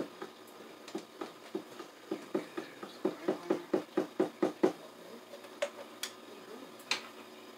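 Light metallic clicking and tapping from hand work in an electrical breaker panel: a quick run of clicks, about four a second, loudest around the middle, with scattered single clicks before and after.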